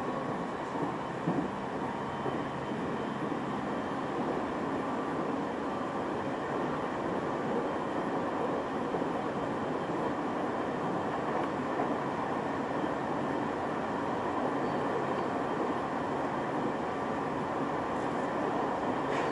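Steady running noise of a train heard from inside the carriage: a continuous rumble of wheels on the rails, with a couple of small knocks about a second in.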